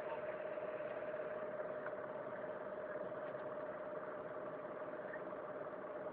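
A steady mechanical hum with one constant mid-pitched tone.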